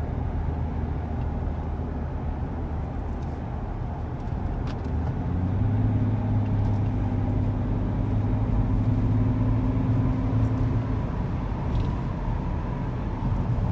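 Low droning hum heard inside the cabin of a 2005 BMW 535d estate at cruising speed, over steady road noise; the hum swells louder about five seconds in and eases off again around eleven seconds. The owner wonders whether it is just tyre noise.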